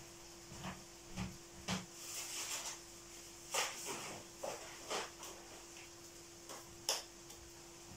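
Scattered knocks and clatter of kitchen objects being handled and put away out of view, the sharpest about three and a half seconds in and near the end, over a steady low hum.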